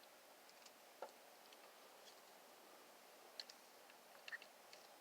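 Near silence with a few faint, scattered clicks from small parts being handled while a precision screwdriver works eyeglass screws.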